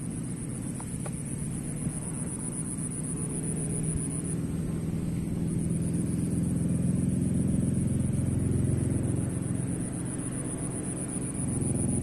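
Outdoor ambience: a low vehicle rumble that swells through the middle and again near the end, with a thin, steady, high insect trill above it that breaks off for about a second around four seconds in.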